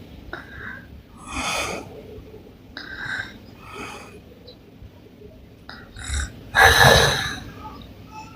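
A woman snoring through an open mouth: a string of separate snoring breaths, the loudest and longest one a little before the end.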